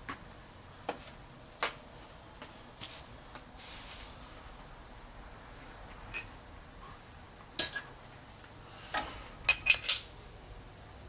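Small metal parts and tools being handled: scattered light clicks, then sharp metallic clinks that ring briefly, the loudest a pair about three-quarters of the way in and three in quick succession near the end.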